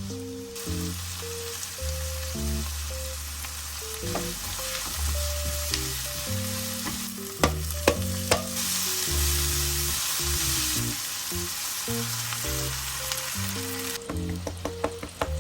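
Food frying in hot oil in a pan: a steady sizzle that starts about half a second in and stops about a second before the end, with a few sharp clicks in the middle.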